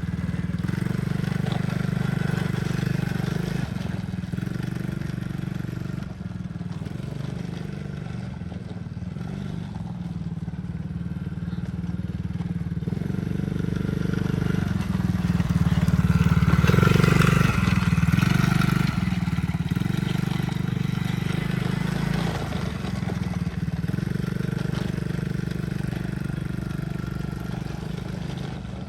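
Tao Tao 110cc ATV's small single-cylinder four-stroke engine running as it is ridden. It grows louder a little past halfway as it comes closest, then eases off.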